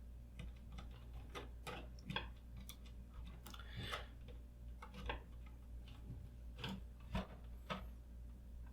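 Scattered small clicks and ticks, irregular and faint, of a wall switch being pushed back into its electrical box and its mounting screws driven in with a screwdriver.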